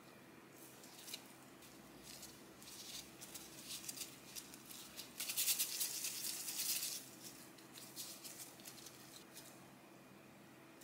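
Disposable plastic gloves crinkling and rustling as hands roll and pinch soft dough balls, loudest and densest about halfway through.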